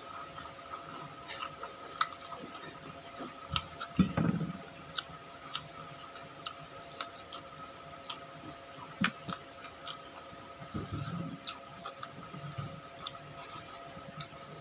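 Close-up eating sounds: chewing with many wet mouth clicks and smacks, with louder bites or crunches about four seconds in and again around eleven seconds, over a faint steady hum.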